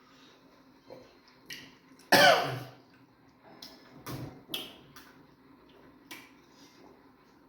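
A person coughs once, sharply, about two seconds in, followed by a few fainter clicks and knocks.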